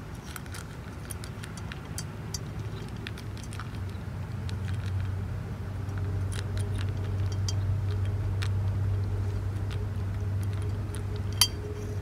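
A cat eating from a stainless-steel bowl: small chewing clicks and light clinks against the metal, with one sharper clink near the end. A steady low hum runs underneath.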